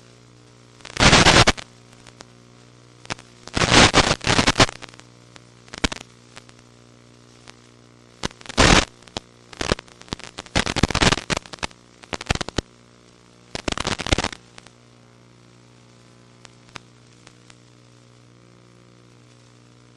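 Radio static from an FPV video receiver's audio channel: loud bursts of hiss come and go irregularly over a steady electrical hum, the sign of the video link breaking up. The bursts stop about two-thirds of the way in, leaving the hum.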